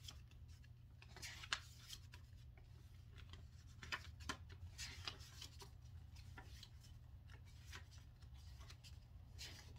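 Faint paper rustles and soft page riffles as the pages of a paperback book are flipped through by hand, with a few sharper flicks, over a low steady hum.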